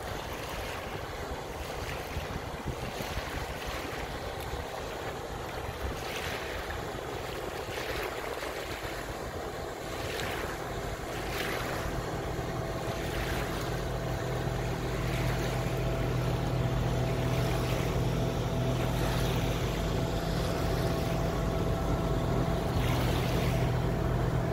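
Water rushing and splashing along a boat's hull, in surges every second or so through the first half. From about halfway a steady boat-engine drone comes up and grows louder.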